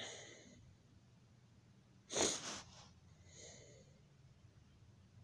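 A person's breathing close to the microphone: a short breath at the start, one louder sharp breath about two seconds in, and a softer one a little after, over a low steady hum.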